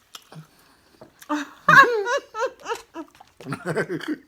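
People's voices talking and laughing.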